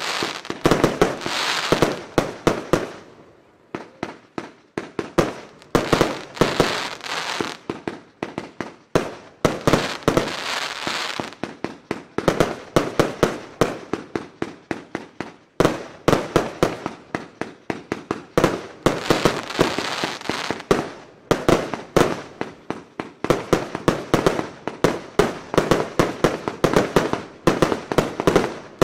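J-Fireworks consumer firework battery firing: a dense, rapid string of launches and bursting bangs, with brief lulls about three seconds in and about halfway through.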